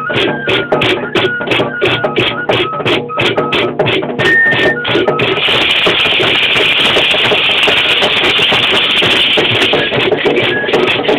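Pascola dance music: a high flute melody over a steady drum beat of about three strokes a second. About five seconds in, a dense, steady rattling hiss takes over, and the beat returns near the end.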